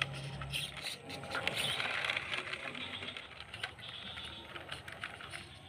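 A small remote-control pickup truck's tyres crunching and crackling over loose dirt and coal chunks, with many small clicks. A faint low hum stops about a second in.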